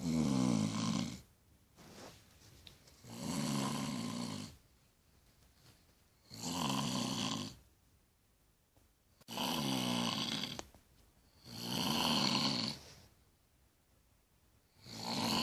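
A sleeping woman snoring loudly: about six raspy snores, each a second or so long, coming every two and a half to three seconds, with quiet breathing pauses between.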